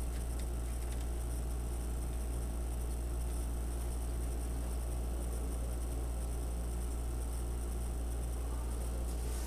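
Steady low electrical hum with a faint buzz, level throughout, and no clear handling sounds over it.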